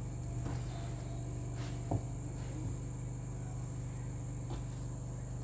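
A steady high-pitched whine over a low hum, with a few faint rustles and taps as satin ribbon and a tape measure are handled.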